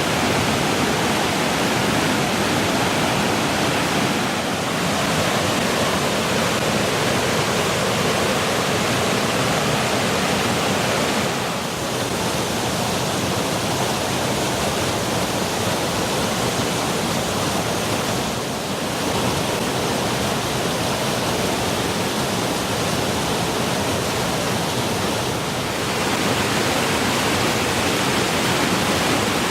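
Short, multi-tiered waterfall rushing steadily, a dense even noise of falling water that dips slightly for a moment about every seven seconds.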